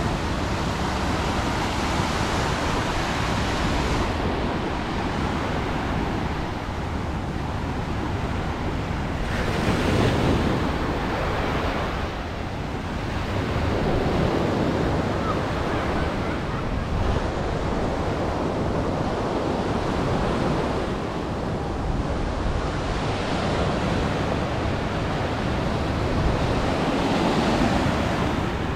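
Small surf breaking and washing up a sandy beach, the sound swelling and ebbing as each wave comes in.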